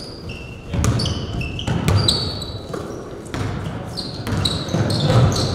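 Basketball game play in a gym: rubber-soled sneakers squeaking on the hardwood court in many short, high chirps, with a basketball bouncing, busier from about a second in.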